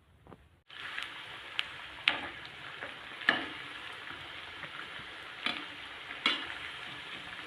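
Pea-and-wheat-flour tikkis frying in hot oil in a kadhai: a steady sizzle that starts suddenly just under a second in, with sharp spatter pops every second or so.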